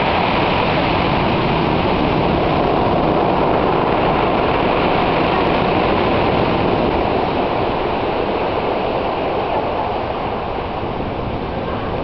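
Storm surf on the sea: breakers crashing and foaming up a concrete slipway in a loud, steady rush of noise that eases slightly in the second half.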